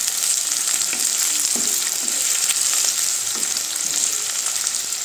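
Sliced onions and green chillies sizzling in hot oil in a clay kadhai, stirred now and then with a wooden spatula. A steady hiss with a fine crackle runs throughout.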